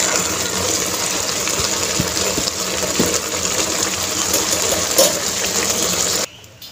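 Pot of aloo matar pulao boiling hard, its water bubbling up through the nearly cooked rice in a steady hiss. The sound cuts off suddenly about six seconds in.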